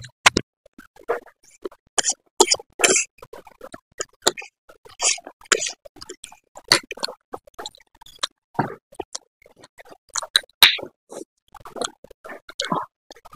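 A person eating Korean noodles: irregular slurps and chewing, with short clicks between them.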